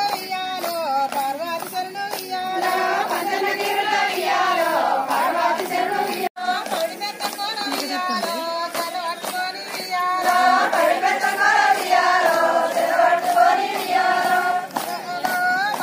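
Women's voices singing a Bathukamma folk song over steady rhythmic hand clapping. The sound drops out for a moment about six seconds in.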